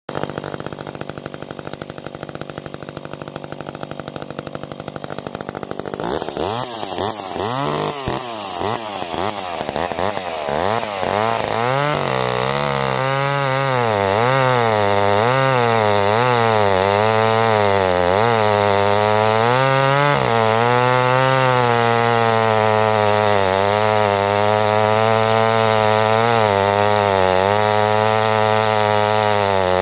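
McCulloch 10-10 Automatic two-stroke chainsaw idling, then revved up about six seconds in and cutting through a log. The engine pitch swings up and down as the chain bites, then settles into a steady, louder run under load for the second half.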